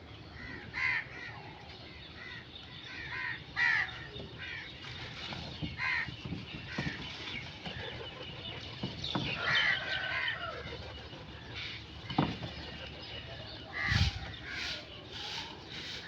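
Crows cawing: harsh calls coming every second or few, sometimes in quick runs of two or three. There are a couple of short low thumps in the second half.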